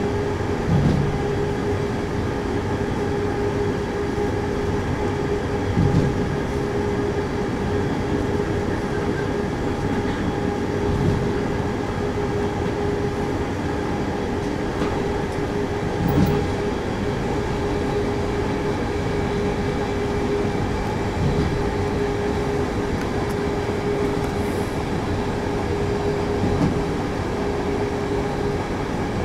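Train running along the track: a steady rumble with a constant hum, and a low thump from the wheels about every five seconds.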